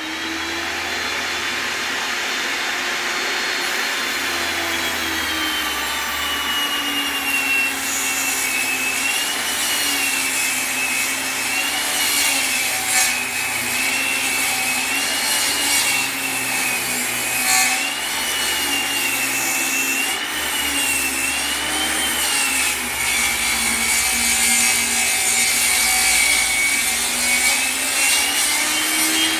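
A power saw fitted with a 10-inch 40-tooth carbide-tipped blade is cutting wood. Its whine dips in pitch and comes back again and again as the blade bites into the cut, over a steady noise of sawing.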